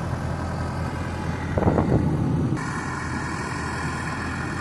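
Pickup truck's 6.2-litre V8 running steadily, heard from inside the cab, with a short bump or clatter about a second and a half in.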